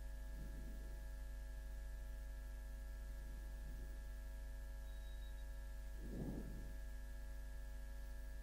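Steady electrical mains hum with several constant tones, heard during a pause in the speech, with a few faint short soft sounds, the clearest about six seconds in.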